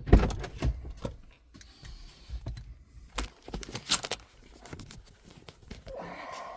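A loud thump right at the start, then scattered light clicks and knocks, like objects being handled.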